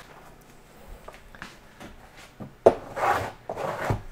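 A cardboard lever-arch binder being handled and slid back onto a wooden shelf: a few light taps, then a knock about two and a half seconds in, followed by two loud rubbing scrapes against the wood.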